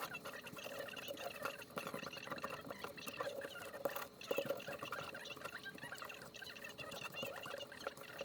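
Dense light clicks and scratches of small hard parts being handled and moved.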